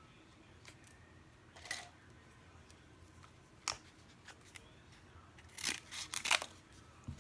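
Scissors cutting through thin cardboard: a quick run of snips about five and a half to six and a half seconds in, after a few single light clicks and taps.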